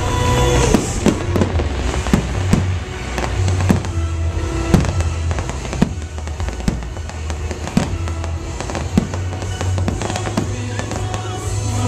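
Fireworks shells bursting in quick succession, a sharp bang every second or so, over loud show music played through the park's speakers.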